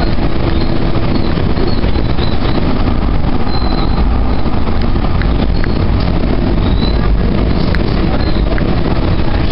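Calgary C-Train light-rail car running along the track, heard from inside the car: a steady, loud rumble of wheels and running gear. A few brief high squeaks rise above it now and then.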